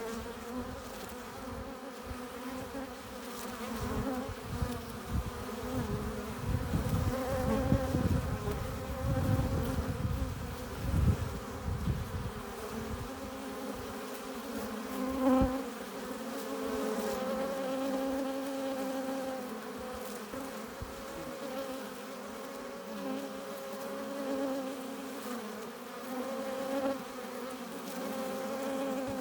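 Many honeybees buzzing at a hive entrance: a steady, pitched hum whose tone wavers as individual bees fly close. A low rumble sits under the buzz for the first half, and there is a brief knock about halfway through.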